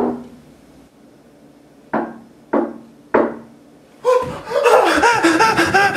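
Knocking on a glass patio door: one knock right at the start, then three evenly spaced knocks about two seconds in. From about four seconds a loud, busy vocal sound without words takes over.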